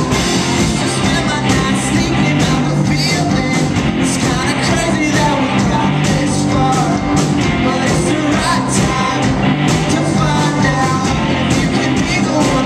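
Live rock band playing loud and steady: drums, electric guitars, bass and an upright piano, with a sung vocal line over them.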